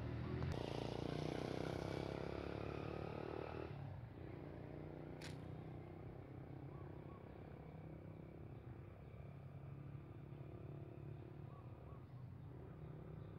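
A motor engine running, louder for the first few seconds and then settling to a steady low drone, with a single sharp click about five seconds in.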